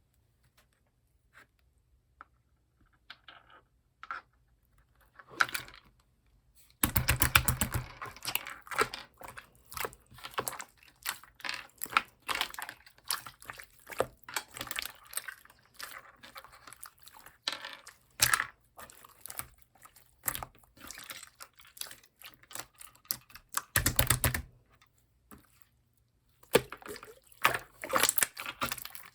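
Slime being squeezed and pressed by hand, making wet clicking and crackling sounds. Only a few faint clicks come in the first several seconds. The clicking turns dense and louder about seven seconds in and runs steadily, with a short pause near the end before it starts again.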